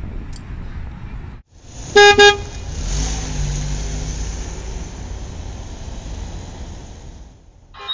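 A car horn honks twice in quick succession, loud and short, about two seconds in, over steady city street traffic noise.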